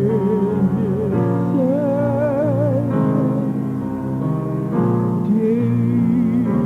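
Gospel music: a singer holding long notes with a wide vibrato over sustained keyboard chords.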